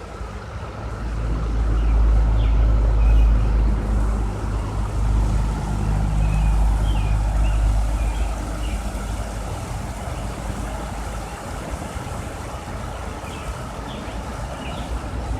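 Low rumble of road traffic from the turnpike and the covered-bridge road. It swells loud about a second in and eases after several seconds. Under it runs the steady drone of a 17-year periodical cicada chorus (Brood V).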